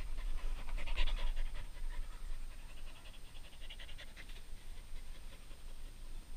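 A rough-coated brindle dog panting rapidly, the breaths growing fainter after about four seconds.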